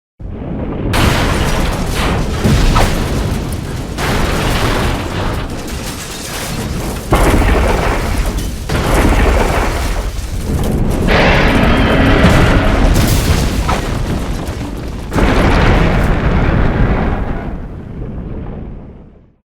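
Neronga kaiju sound effect: a run of loud, rumbling booms, about five long blasts that each start suddenly, fading out near the end.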